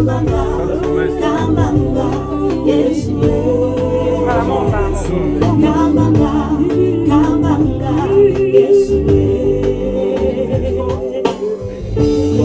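Gospel choir singing held notes in several-part harmony over a low bass line.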